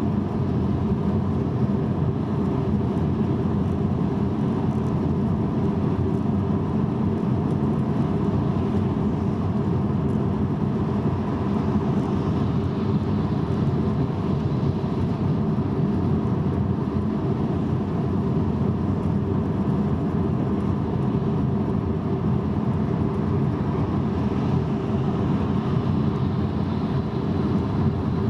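Steady road and tyre noise of a car cruising at motorway speed on wet asphalt, heard from inside the cabin as a deep, even rumble.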